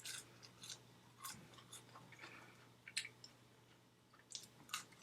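A person chewing food close to the microphone: scattered soft, wet mouth clicks, spaced irregularly.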